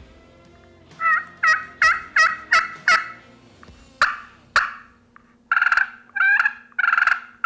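Pot-style friction turkey call worked with a wooden striker: a quick run of about six two-tone yelps, two short sharp clucks, then three longer drawn notes near the end.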